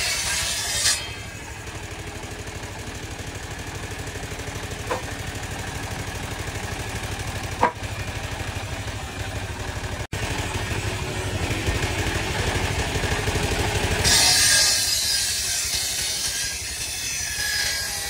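Large circular saw blade of a rural table sawmill ripping a log: a harsh, hissing rasp of the blade in the wood in the first second and again about 14 seconds in. Between the cuts the saw runs free with a steady low, pulsing drone from its drive, and two short knocks.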